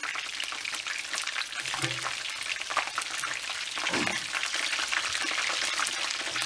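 Chicken wings frying in hot oil in a cast-iron skillet, as already-cooked wings are put back in to reheat. A steady sizzle full of small crackles and pops.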